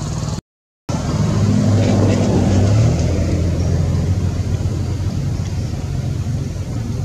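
A motor vehicle engine running, a low rumble that grows louder about a second in and eases off after about three seconds. All sound cuts out briefly near the start.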